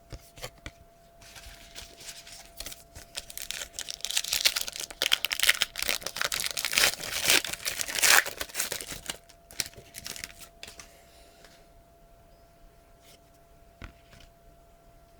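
A trading-card pack's wrapper being torn open and crinkled, a dense rustling that builds and is loudest in the middle, followed by a few light clicks as the cards are handled.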